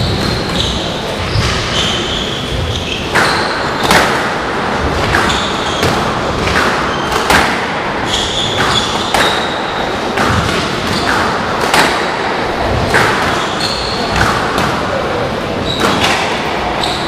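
Squash rally: the hard rubber ball smacks off rackets and the court walls about once a second, each hit ringing briefly around the court. Players' court shoes give short high squeaks on the wooden floor between shots.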